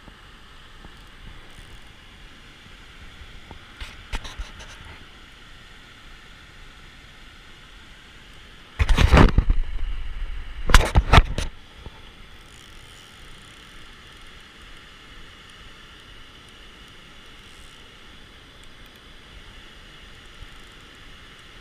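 Steady rush of water pouring over a low river dam, with two loud bursts of noise about nine and eleven seconds in.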